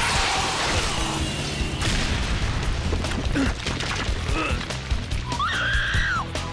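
Cartoon action soundtrack: orchestral score under fight effects, opening with a loud crash and rumble of debris that lasts about two seconds. Near the end comes a short, high, wavering cry.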